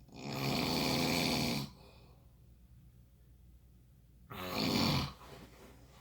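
A sleeper snoring: a long, rasping snore lasting about a second and a half, then a shorter one about four seconds later.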